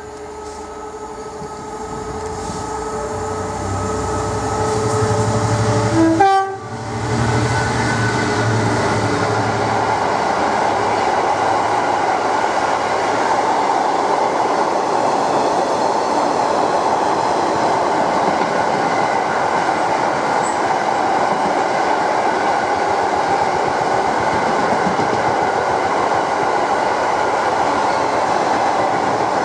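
A train approaching with steady tones growing louder, then passing close at speed: a sharp peak about six seconds in, followed by a long, steady rush and rattle of wheels on rail.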